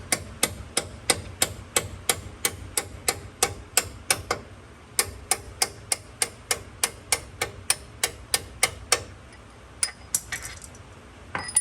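Hammer tapping a steel punch to drive out a brake caliper retaining pin on a Ford Bronco II front brake: sharp metallic strikes, about three a second. The tapping stops briefly about four seconds in, picks up again, and ends with a few scattered taps near the end.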